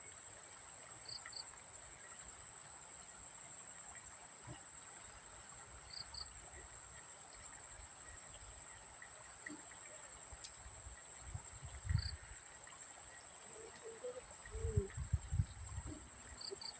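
A steady, high insect chorus of crickets trilling without a break, with a short double chirp repeating about every five seconds. Near the end come several low, dull bumps and rumbles.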